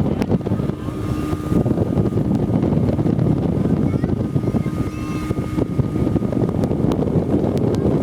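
Motorboat under way at cruising speed: steady engine and water rush, with wind buffeting the microphone.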